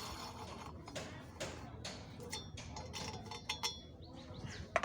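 A hand tap being turned in a tap wrench, cutting 14 × 1.25 mm spark-plug threads inside a steel thread coil in a chainsaw cylinder head. It makes irregular small metal ticks and clicks, with a few brief metallic rings midway and a sharper click near the end.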